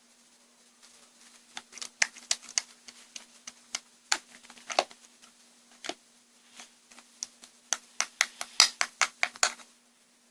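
An irregular run of sharp clicks and taps, sparse at first and coming thick and fast near the end.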